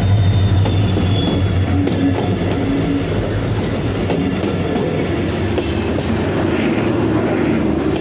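Indian Railways diesel locomotive passing at close range, its engine's steady drone giving way about halfway through to the rumble of passenger coaches rolling past on the rails.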